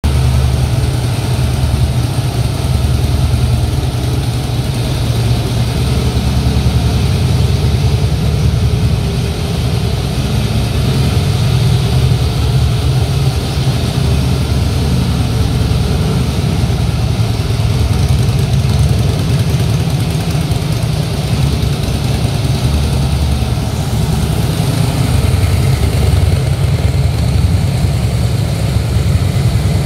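2014 Harley-Davidson Fat Boy's air-cooled Twin Cam 103 V-twin idling steadily through a Screaming Eagle aftermarket exhaust, a deep, low-pitched sound.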